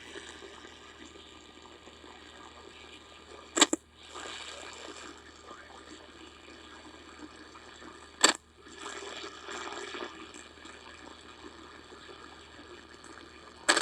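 Steady hiss broken by three short, sharp, loud clicks about four and a half seconds apart, the first two each followed by a brief drop in the hiss.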